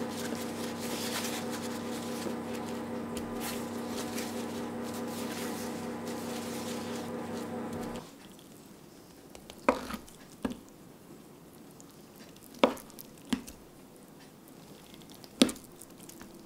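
Paper towel crinkling as a block of firm tofu is wrapped and pressed, over a steady hum. After a cut about eight seconds in, a kitchen knife slices down through the tofu, tapping the wooden cutting board five times.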